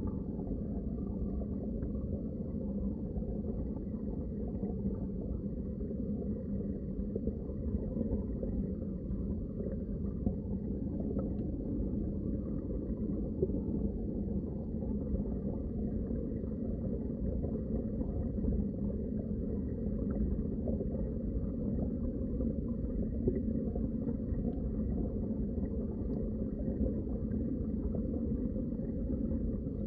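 Underwater ambience: a steady, muffled low rumble of water, with almost nothing in the high range.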